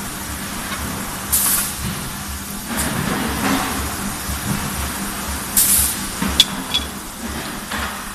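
Hot-billet roller conveyor and shearing line running with a steady machinery hum and a regular low pulsing. Two short blasts of compressed-air hiss come about a second in and again near six seconds, followed shortly by a sharp metallic click.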